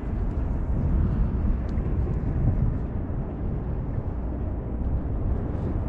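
Wind buffeting the camera microphone: a steady low rumble that swells and eases.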